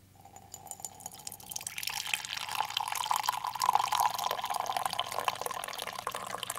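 Coffee pouring in a thin stream into a ceramic mug, a splashing fill that grows louder about a second and a half in and then runs on steadily. A faint low hum lies underneath.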